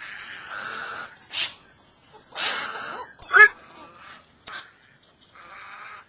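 Black-crowned night heron giving a single loud, harsh 'quok' call about halfway through, with quieter hissing noise before and after it.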